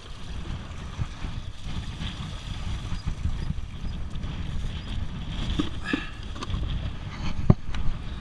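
Wind rumbling on the camera microphone, with a couple of sharp knocks near the end from the camera and bucket being handled.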